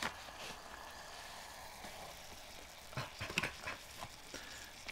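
Plastic containers of a self-heating hot pot being handled: a click at the start, then a few clatters and knocks about three seconds in as the inner food bowl is lifted out of the outer tray and set down. Under it runs a faint steady fizzing hiss from the heating pack, which is still reacting and giving off heat.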